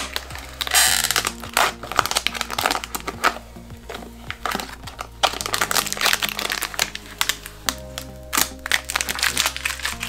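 Protective plastic film being peeled and crumpled off a chrome espresso machine's group head and lever, giving a run of irregular crinkles and rustles over steady background music.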